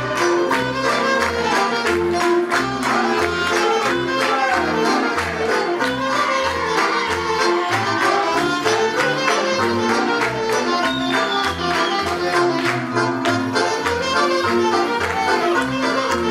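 Romanian folk dance music with a steady, even bass beat and a melody line above it, marked by frequent sharp accents.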